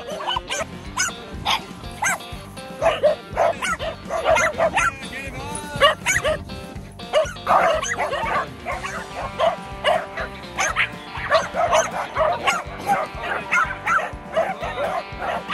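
A pack of small dogs barking and yapping excitedly, many short overlapping barks several a second, over background music.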